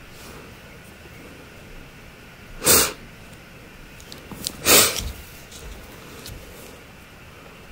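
Two sudden, loud bursts of air noise about two seconds apart, the second a little longer, over quiet room tone.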